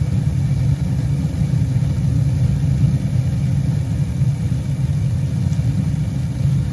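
Gas-fired main burner running with a loud, steady low rumble, as the manifold gas pressure comes up to about 3.5 inches of water column at full fire.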